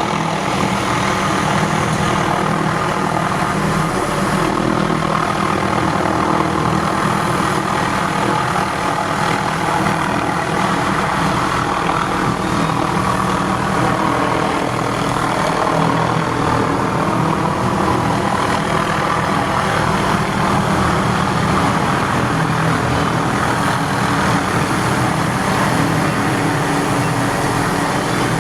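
Hughes 500D helicopter's Allison turboshaft engine and rotors running steadily at an even level, as the helicopter works an aerial tree-trimming saw.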